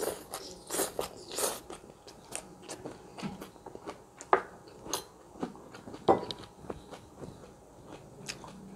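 Crunchy chewing of a mouthful of asinan Bogor, raw cabbage and other raw vegetables with peanuts, close to the microphone, with irregular crisp crunches.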